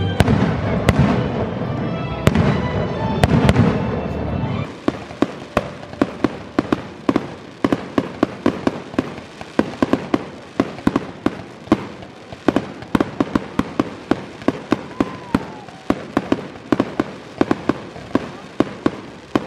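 Fireworks: deep booms and a dense rumble for the first four seconds or so. Then, after a sudden change, a long run of sharp crackling pops comes several times a second.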